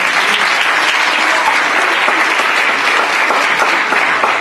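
Audience applauding: many hands clapping in a dense, steady round.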